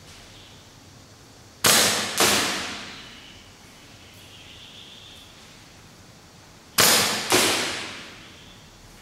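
Gas blowback airsoft rifle firing 0.4 g BBs on green gas. Two sharp cracks about half a second apart, then another pair some five seconds later, each echoing and dying away over about a second in a large, bare concrete hall.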